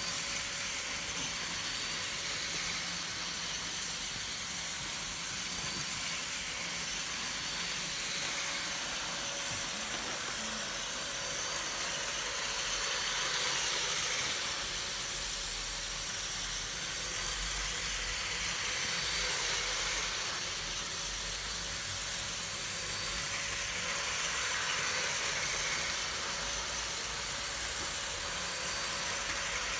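Hornby OO gauge Thomas the Tank Engine model locomotive running laps of the track with its wagons: a steady whirring hiss of its small electric motor and wheels on the rails. The sound swells about every six seconds as the train comes round past the microphone. The locomotive's connecting rod has just been repaired.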